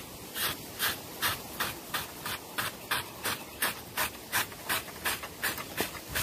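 A knife blade scraping singed bristles and burnt skin off a dead hog's hide, in short rasping strokes about three a second.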